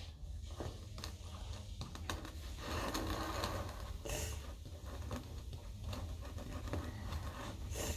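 Hands kneading and scraping a Play-Doh slime mixture: quiet, close scraping and rubbing with many small clicks, over a low steady hum.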